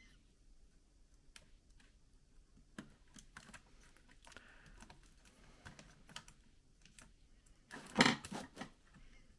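Scattered small clicks and taps of plastic laptop parts and cable connectors being handled and unplugged, with a louder cluster of knocks about eight seconds in.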